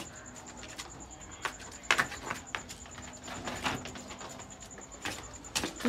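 Hooves knocking and scraping on a brick floor as a cow shifts and turns, a few scattered clicks with the loudest about two seconds in, over a faint low steady tone.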